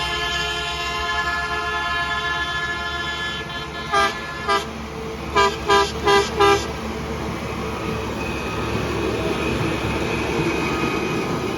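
Horn on a railroad track-maintenance machine sounding a long chord of several notes for about three and a half seconds, then two short toots and a quick run of four more, a playful honk-and-wave greeting. After the toots, a steady mechanical rushing of the passing machinery.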